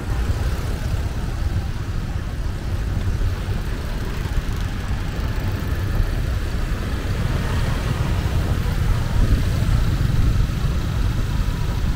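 Steady road traffic noise: vehicles running and passing, with a heavy low rumble.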